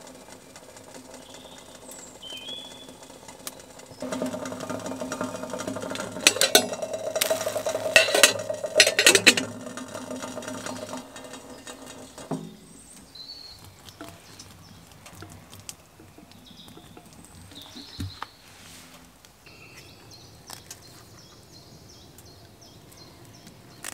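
Small stainless steel kettle on a wood stove coming to the boil, rumbling steadily with loud spitting and rattling from about six to nine and a half seconds in. The sound stops suddenly about twelve seconds in as the kettle is lifted off the stovetop. Birds chirp faintly now and then.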